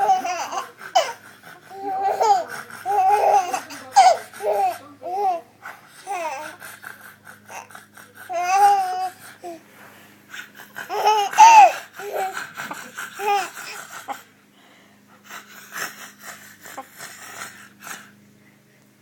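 A baby laughing hard in repeated high-pitched bursts, set off by someone's heavy breathing, with breathy huffs in the gaps. The laughing dies down after about fourteen seconds, leaving softer breathing.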